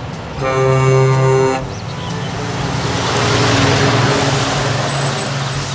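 Scania semi-truck with a tanker trailer sounding its air horn once for about a second, then driving past: engine and tyre noise swelling to a peak around four seconds in and easing off.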